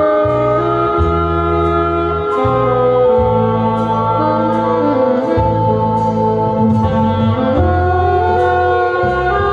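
Saxophone melody, with some sliding notes, played live over a backing track. The backing track carries a steady bass line and light, regular percussion ticks.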